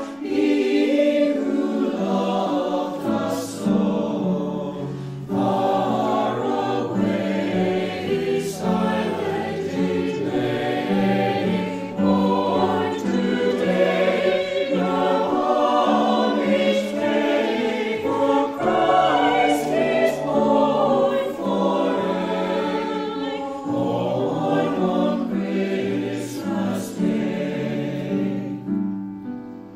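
A choir singing a Christmas carol in long held phrases, with short breaks between the lines; the singing falls away near the end.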